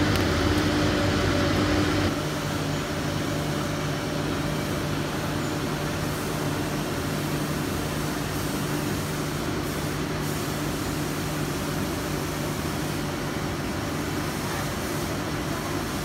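Steady hum and rumble of a continuous foam production line's machinery and conveyor, with a low held drone. It drops a little in level about two seconds in and then runs evenly.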